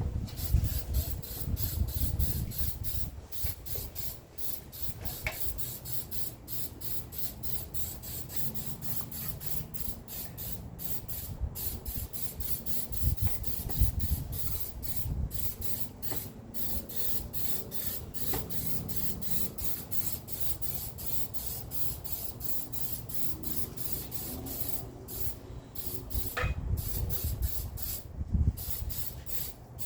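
Aerosol spray can hissing in a long run of short passes, about two a second, as the rear axle is spray-painted. Low rumbles come in now and then.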